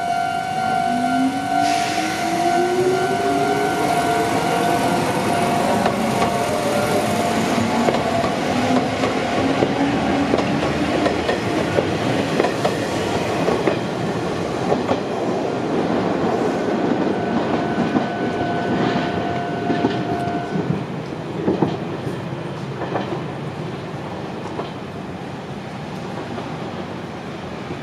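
Railway level-crossing alarm ringing steadily while an electric train accelerates over the crossing, its motor whine rising in pitch over its wheels rumbling on the rails. The alarm stops about twenty seconds in and the train noise fades away.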